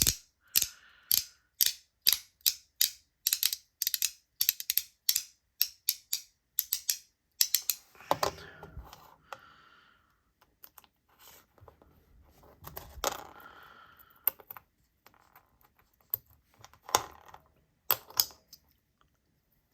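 Magnetic haptic fidget donut clicking as it is worked by hand, about three sharp clicks a second for the first seven seconds or so. After that the clicks come more sparsely, mixed with softer handling rustle.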